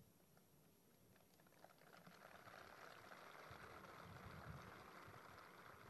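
Near silence: faint background noise that swells slightly in the middle, then fades.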